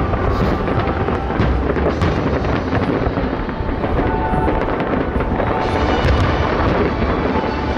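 Fireworks display: many overlapping booms and crackles running together, with a few sharper bangs.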